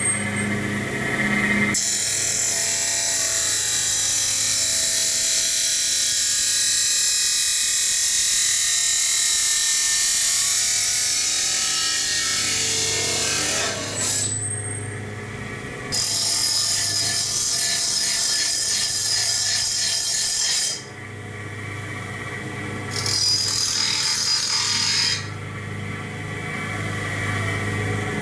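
Chop saw cutting aluminum tubing: the motor hums steadily while the blade grinds through the tube in one long cut of about twelve seconds, then, after a brief break, in two shorter cuts.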